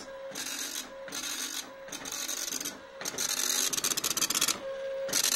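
Teletype Model 43 teleprinter's dot-matrix print head printing lines of text: rapid rasping ticks in bursts about a second long, a line at a time, with short pauses between lines and a longer run of printing about three seconds in.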